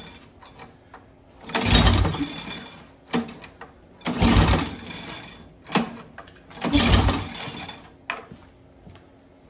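Toro Timemaster walk-behind mower engine being pull-started three times, each pull a second-long whir of the recoil starter turning the engine over without it catching. The engine has sat unused for about six months.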